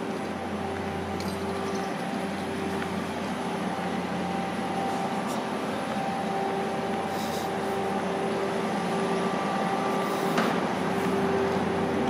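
Steady machine hum with a low pitched drone, growing slightly louder, and a single sharp click about ten seconds in.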